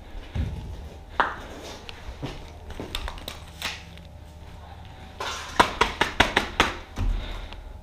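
A quick, uneven run of about eight sharp cracks a little past the middle, after a few seconds of light knocks and scuffs of movement on a hard floor.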